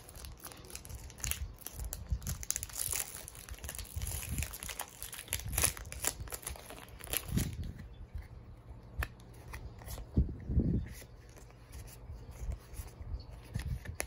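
Foil wrapper of a Pokémon trading-card booster pack being torn open and crinkled by hand. After about seven seconds it gives way to quieter handling of the card stack, with soft clicks and a low bump.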